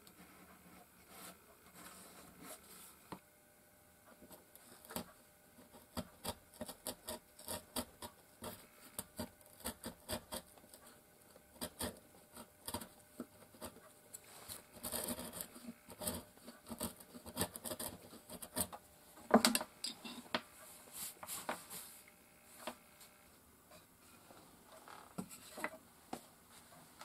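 Marking knife scoring and a hand chisel paring softwood: irregular short scrapes and light taps, with one louder knock a little past the middle and fewer sounds near the end.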